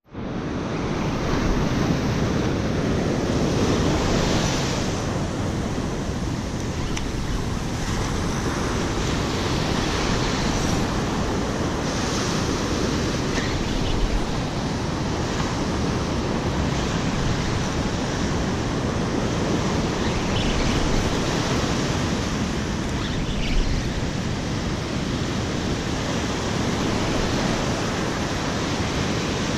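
Ocean surf breaking and washing up a sandy beach in a steady, continuous wash of waves, with wind rumbling on the microphone.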